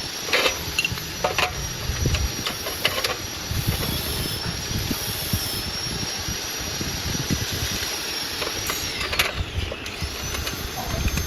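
Grass chopper machine running with a steady high whine. About nine seconds in, the whine drops in pitch and then climbs back, as if the machine slows under load and recovers. A few sharp knocks sound over it.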